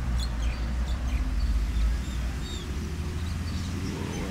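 Low rumble, heaviest in the first two seconds, with a few faint bird chirps over it.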